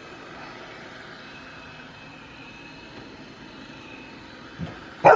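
Robot vacuum cleaner running with a steady whir and a faint high whine. A short, loud, sudden sound comes right at the end.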